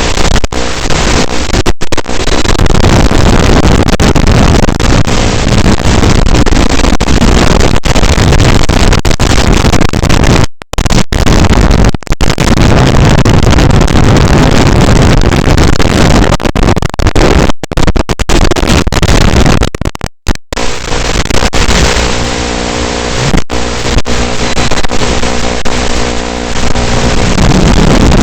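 FPV drone in flight heard through its onboard audio feed: a loud, dense rushing of motors and wind, cut by several brief total dropouts. A steady pitched motor hum shows in the last few seconds.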